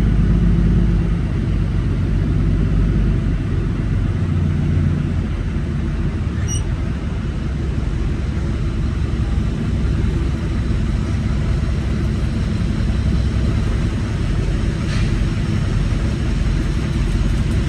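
Semi truck's diesel engine running at low speed, a steady low rumble whose pitch shifts slightly in the first few seconds.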